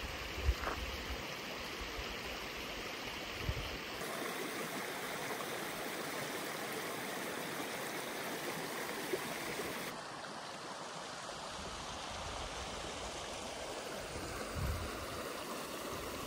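Rushing water of a canyon waterfall and its creek, a steady even rush with no let-up, shifting slightly in tone at about 4 and 10 seconds in. A few brief low thumps on the microphone.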